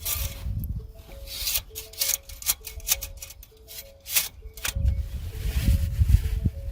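Background music with a simple repeating melody, over close rubbing and clicking sounds, with a louder rustle and low rumble from about five seconds in.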